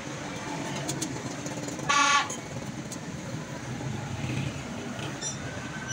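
A short, loud vehicle horn honk about two seconds in, over the steady background noise of street traffic.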